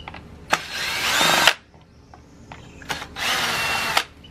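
Cordless drill-driver backing screws out of a plastic dirt-bike airbox cover, in two runs of about a second each.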